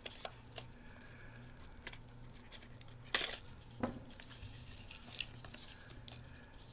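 Small cardboard box being opened by hand: faint scrapes and taps as its tab and flap are worked loose, with a louder brief scrape about three seconds in and another just after.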